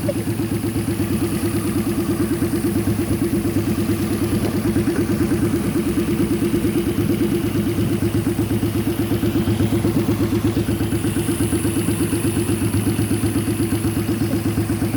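A custom motorcycle's 1000cc car engine idling steadily on its own, with an even, rapid exhaust pulse.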